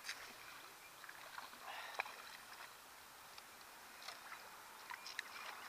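Faint sounds of a canoe on the water: light knocks and small water noises against the hull, with one sharp click about two seconds in and a few short high chirps near the end.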